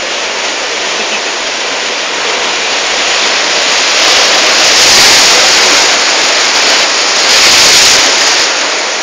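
Sea surf breaking on and washing over shoreline rocks, a steady rush of water that swells louder twice, about halfway through and again near the end.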